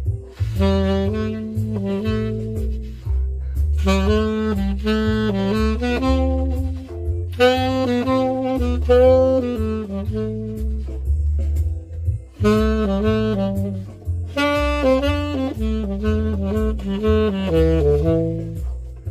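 Tenor saxophone improvising jazz-blues phrases in short runs with brief pauses between them, over a backing track with a stepping bass line and light percussion.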